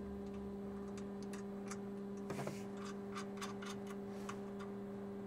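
Faint, irregular small clicks and ticks, two or three a second, as a bolt and bracket are fitted by hand, over a steady low hum.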